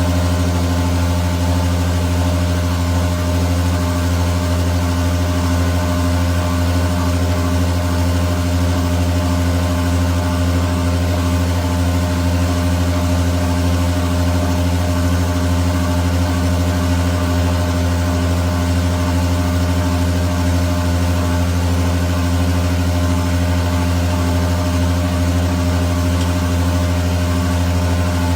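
A machine motor running steadily with a constant low hum that never changes in pitch or level.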